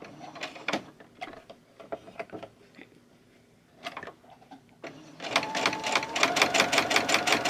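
Light clicks of fabric and thread being handled, then about two thirds of the way in a Brother SE400 sewing machine starts stitching: a steady motor whine under a fast, even clatter of stitch strokes. The machine has a clunk in its stitching that is not quite right, a fault the owner links to a bent needle scratching the bobbin case.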